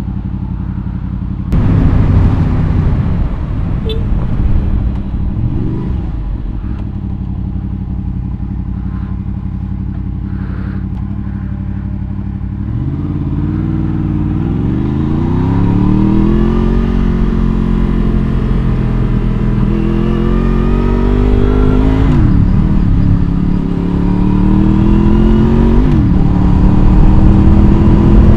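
Honda VFR800's V4 engine idling in traffic, getting louder about a second and a half in. About twelve seconds in the bike pulls away and accelerates, the engine's pitch climbing and then dropping sharply at each upshift.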